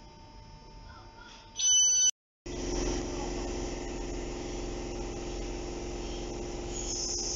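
A short, loud electronic beep, then after a cut a Networker electric multiple unit at the platform, its traction equipment giving a steady hum with a hiss that brightens near the end.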